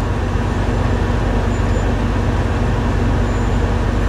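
Diesel truck engine idling: a steady low rumble that holds even, heard from inside the cab.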